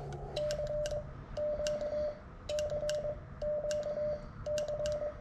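Ham transceiver's Morse code sidetone sending a CQ call: a single steady mid-pitched beep keyed in quick runs of dots and dashes, grouped into about five bursts with short gaps, with crisp clicks in time with the sending.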